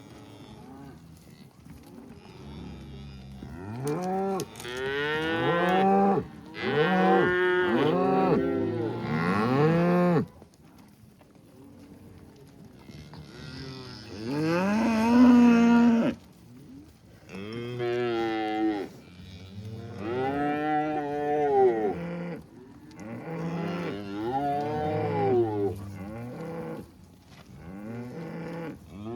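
A herd of beef cows mooing and bawling, long calls coming one after another and often overlapping, with a short lull about ten seconds in.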